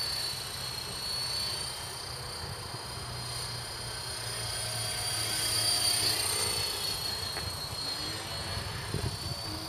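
KDS 450 electric RC helicopter flying at a distance: a steady high whine from its motor and rotor, swelling for a moment about six seconds in.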